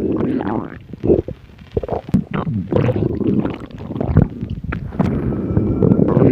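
A hungry human stomach growling: an irregular run of low gurgles and short squelchy pops, easing off about a second in and swelling into a longer, louder rumble near the end.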